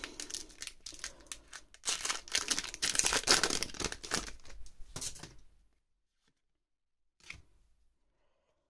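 Foil Pokémon booster pack being torn open and crinkled as the cards are slid out of the wrapper, stopping about five seconds in; one faint tap follows later.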